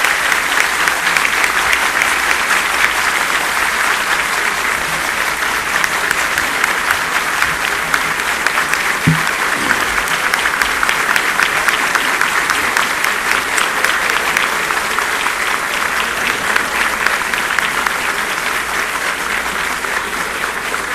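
Large crowd applauding steadily, many hands clapping at once, easing off a little near the end.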